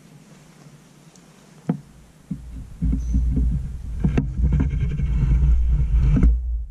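A single click, then from about two seconds in a loud low rumble with crackling and scraping: handling and wind noise on the camera's microphone as the camera is moved. It stops abruptly near the end.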